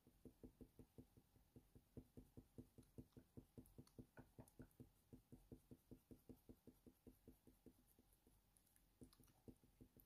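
Faint, quick, rhythmic strokes of a Faber-Castell Polychromos coloured pencil rubbing in small circles on hot-press watercolour paper, about five a second, dying away about three-quarters of the way through with a few stray strokes after.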